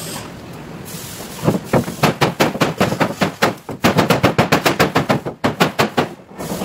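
Rapid hammer blows on the thin aluminium hull of a Sportspal canoe, several a second, beating the crushed skin back into shape. The hammering starts about a second and a half in.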